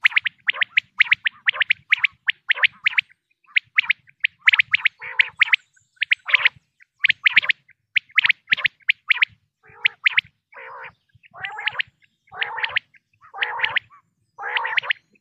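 Recorded common quail calls played as a hunting lure: quick groups of short, sharp, high notes repeated over and over. From about ten seconds in, longer, lower, raspier calls alternate with them.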